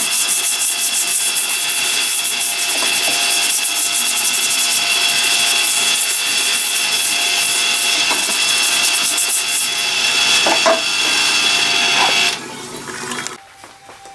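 Stiff flow-through parts-washer brush scrubbing the cast-iron bed of a Hercus 9" lathe, with solvent running over the metal. It is a steady, busy scraping that stops abruptly about twelve seconds in.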